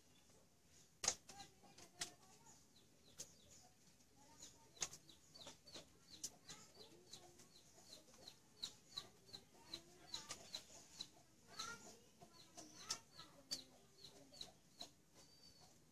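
Faint handling of a scalded rabbit in a metal basin of water as its fur is pulled off, with scattered clicks and knocks, the loudest about a second in. Behind it a bird gives a long run of short high chirps, about three a second, from about five seconds in.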